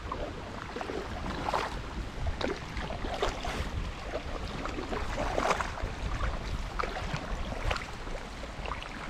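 Paddles dipping and splashing in river water as an inflatable canoe is paddled along, in irregular strokes, over a low rumble of wind on the microphone.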